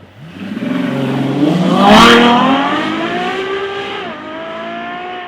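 Ferrari 6.3-litre naturally aspirated V12 accelerating hard from low revs, its pitch rising steeply and loudest as the car passes close about two seconds in. About four seconds in the pitch drops sharply on an upshift, then climbs again as it pulls away.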